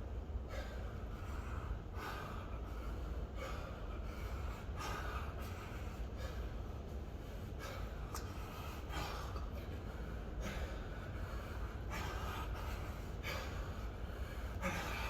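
A man breathing hard under exertion, with short forceful breaths through the nose and mouth repeating about every second or so, paced to a set of kettlebell deep squats.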